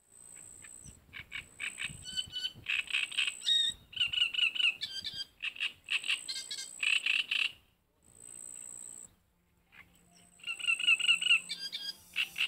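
Frogs calling in quick pulsed series over a steady high-pitched insect trill. The sound breaks off briefly a few times, in the middle and just before the end.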